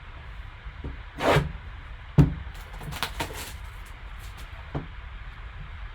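Cardboard card box and its packaging being handled and opened: a few short rustling swishes and one sharp click about two seconds in, over a low steady hum.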